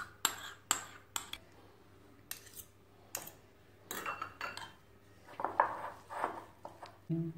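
Metal spoon clinking and scraping against ceramic dishes as mayonnaise is scooped out of a bowl and stirred into mashed boiled egg yolk. There are a few sharp clinks in the first second and a half, then scattered scraping strokes.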